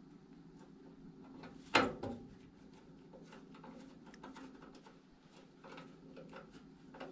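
Small clicks and scrapes of a hand screwdriver driving a mounting screw for a new transformer into a furnace's sheet-metal panel, with one sharp knock of metal about two seconds in.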